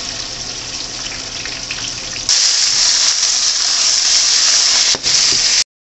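Eggplant pieces deep-frying in hot oil, a steady bubbling hiss with crackles. About two seconds in it changes to a louder, brighter sizzle of fried eggplant being stirred in a hot frying pan, which cuts off suddenly near the end.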